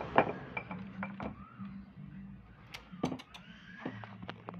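Clicks and knocks of a glass sliding panel being moved, the loudest just after the start and a cluster about three seconds in, over a steady low hum.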